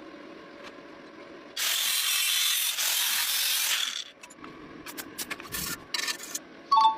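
A harsh, loud scraping noise that lasts about two and a half seconds, followed by a few scattered clicks and a short two-tone beep at the very end.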